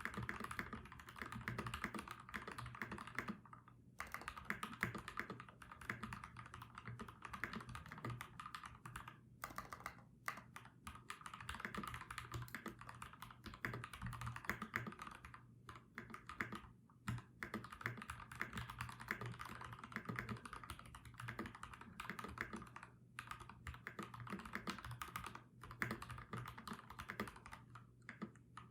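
Typing on a Keydous NJ68 mechanical keyboard with FFFF 62g linear switches lubed with 205g0, a fast, steady run of keystrokes broken by a few short pauses.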